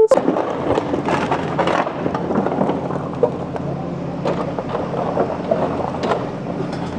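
An engine running steadily, with a continuous rattling, scraping clatter of many small knocks over it, typical of demolition work with heavy machinery.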